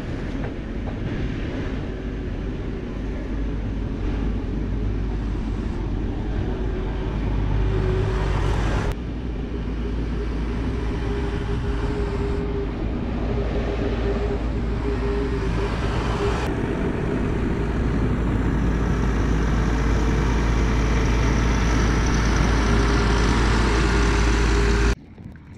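A machine's engine running steadily, loud and low with a held hum, then cut off abruptly near the end.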